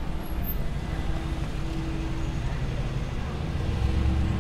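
Street traffic: car engines and tyres running steadily as a low rumble, swelling louder near the end as a vehicle draws close.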